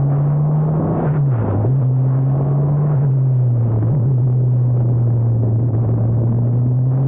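Formula Abarth single-seater's 1.4-litre turbocharged four-cylinder engine running hard at steady revs, with a brief dip in pitch about a second in and a small step down around three seconds.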